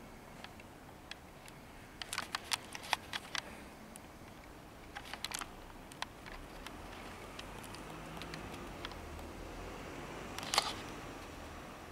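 Handling noise from the camera filming: a quick run of sharp clicks and taps about two seconds in, a shorter cluster about five seconds in, and one louder click near the end, over a faint steady background.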